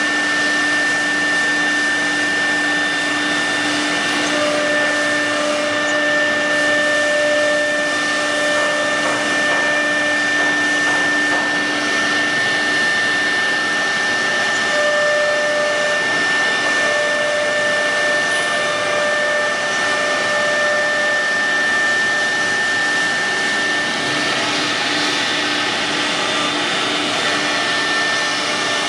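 CNC nesting router's spindle cutting a laminated board panel: a steady high whine over a constant rushing noise from the dust extraction. A lower hum underneath drops away about twelve seconds in.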